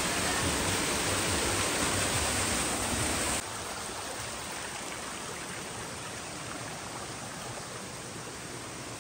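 Rushing water of a small waterfall pouring down a rock gorge. About three seconds in it cuts off abruptly to the quieter rush of a shallow stream running over rocks.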